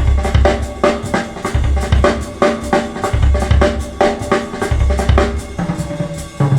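Recorded music with a drum kit and deep bass, played back through Bowers & Wilkins 803 D4 loudspeakers driven by a Marantz Model 10 amplifier. Bass drum and snare keep a steady beat of about two hits a second under long low bass notes.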